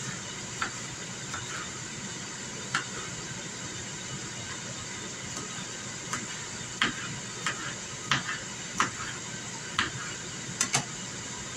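Kitchen knife chopping cucumber on a plastic cutting board: sharp, irregular taps that come quicker in the second half. Under them is a steady whooshing hiss from the Ninja Foodi Grill's fan as it preheats, which she says is louder than it normally is.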